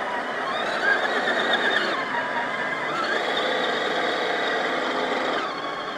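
Whine of a 1/10-scale RC crawler's brushed 540 electric motor and gear train under throttle. Its pitch rises and falls with throttle and drops near the end.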